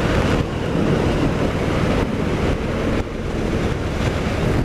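Loud wind buffeting on the microphone of a motorcycle at steady road speed, with the Harley-Davidson Sport Glide's Milwaukee-Eight 107 V-twin engine running underneath.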